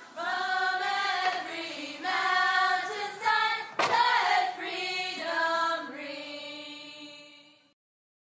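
Choir singing held chords that change every second or so, with one sharp hit a little under four seconds in. It fades out and stops near the end.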